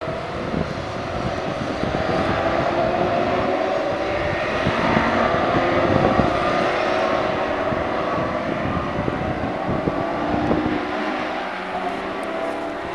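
A pack of Ginetta GT5 race cars accelerating away at a race start, many engines revving hard at once in a dense, shifting drone of overlapping engine notes. The sound eases off about eleven seconds in as the field moves away.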